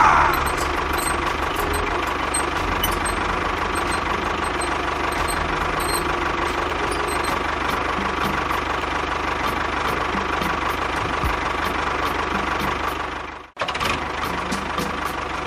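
A small motor running steadily with a low throb and a thin whine. It cuts out abruptly about 13.5 seconds in and starts again almost at once.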